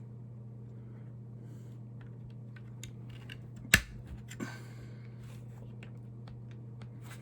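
Small steering parts of an RC car being handled and fitted by hand: scattered light clicks, one sharp snap a little under four seconds in, then a brief rattle, over a steady low hum.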